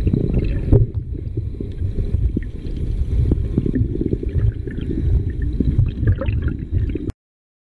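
Muffled rumbling of stream water heard by an underwater camera in its waterproof housing, with many small knocks and clicks scattered through it. It cuts off abruptly about seven seconds in.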